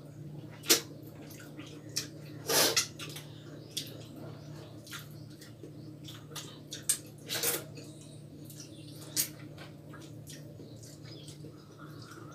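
Eating at a table: irregular sharp clinks of fingers and food against stainless-steel plates and a small steel bowl, with a couple of longer wet sucking slurps from a mango stone being eaten. A low steady hum runs underneath.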